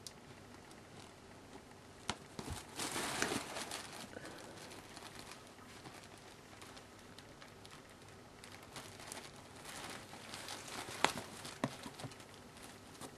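Fabric cat tunnel rustling and crinkling as a kitten scrambles inside it and bats at a feather toy. There is a long burst of rustling about three seconds in, more rustling near the end, and a few sharp taps.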